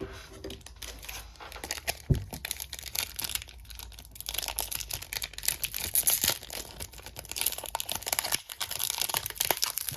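Trading-card booster pack being torn open, its wrapper crinkling and crackling in irregular bursts throughout.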